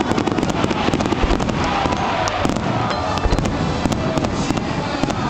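Fireworks display: a dense, continuous barrage of rapid crackling pops and bangs, with a couple of deeper booms about a second in and just after three seconds.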